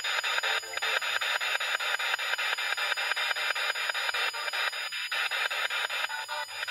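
Handheld spirit box (ITC Research Device) sweeping through radio frequencies: steady radio static chopped into rapid, even steps many times a second as it jumps from station to station.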